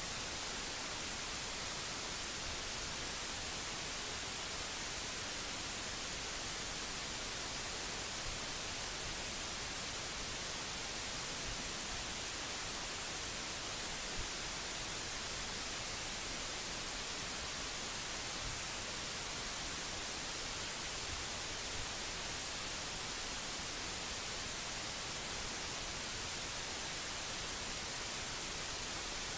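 Steady, even hiss with no other sound: the noise floor of the recording.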